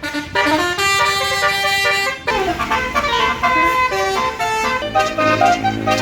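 A bus's basuri 'telolet' musical air horn playing a tune, with clear stepped notes. The melody changes abruptly at the start and again about two seconds in. A low steady engine hum joins near the end.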